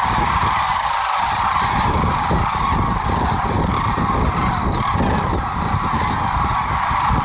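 A huge flock of sandhill cranes and white geese calling all at once, a dense, unbroken chorus of overlapping calls with no single voice standing out.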